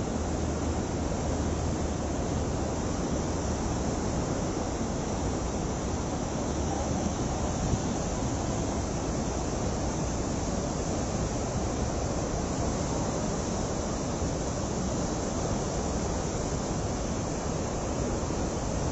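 Steady rushing of a river in full flood, a fast, churning torrent of muddy water.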